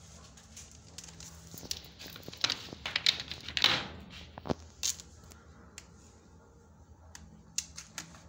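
Handling noise around a red plastic pet basket: rustling, scraping and a few sharp clicks, loudest in a burst about two to five seconds in.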